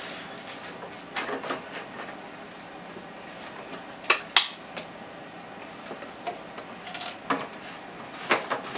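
Plastic clicks and knocks of a red plastic gas can and its spout being handled, with two sharp clicks close together about four seconds in as the loudest.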